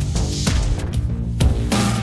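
Outro music with a driving beat: sustained pitched chords under regular drum hits.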